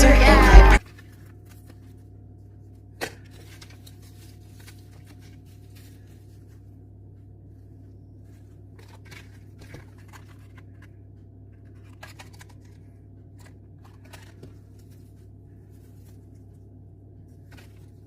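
Backing music cuts off under a second in. Then comes quiet room hum with faint, scattered rustles and clicks of packaging and small items being handled, one sharper click about three seconds in.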